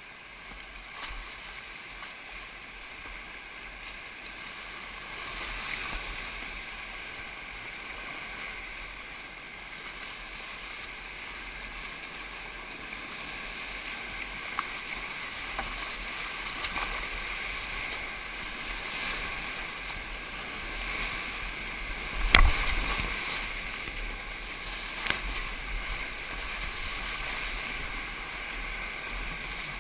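Class III–IV whitewater rushing and splashing around a kayak, growing louder as the boat runs the rapid. A sharp knock about two-thirds of the way through, and a smaller one a few seconds later.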